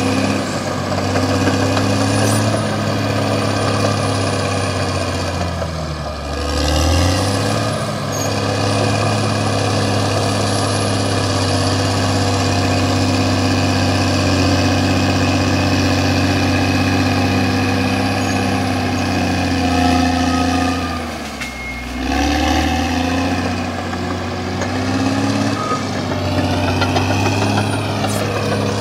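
CAT D6R XL crawler bulldozer's diesel engine running steadily at working speed, its pitch sagging and climbing back twice, about six seconds in and again about twenty-one seconds in.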